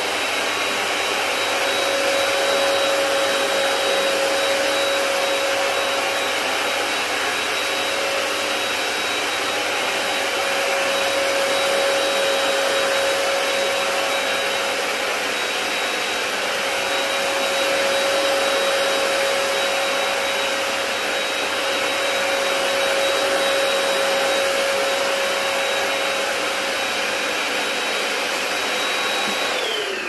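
Hoover PowerDash Pet carpet cleaner running, its motor giving a steady drone with a whine, the level slowly rising and falling. Near the end it is switched off and the whine falls away as the motor spins down.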